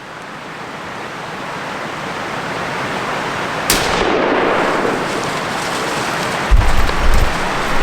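Rain hissing steadily and building, with a sharp thunderclap about halfway through that swells into rumbling, then deep low thuds near the end.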